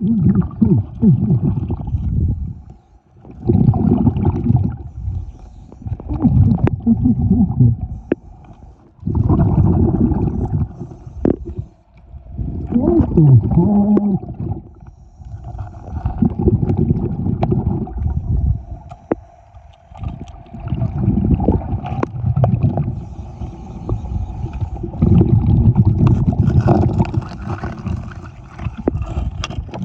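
Underwater, bursts of gurgling bubbles every few seconds over a steady hum: a diver breathing through a dredge's hookah air regulator.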